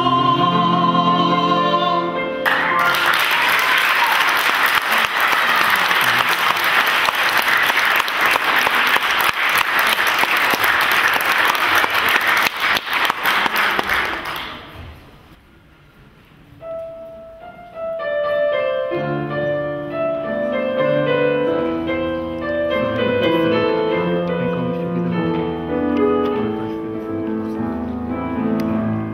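A young male classical singer with grand piano accompaniment finishes a song in the first couple of seconds, followed by audience applause lasting about twelve seconds. After a short hush, piano begins the introduction to the next piece.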